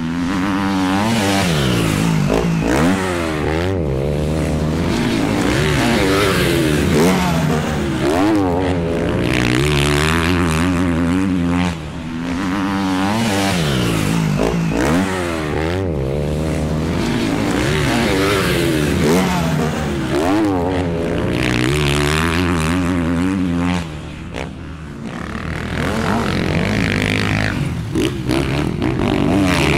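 Dirt bike engine revving, its pitch climbing and falling again and again as if through gear changes, with brief drops in level about 12 and 24 seconds in.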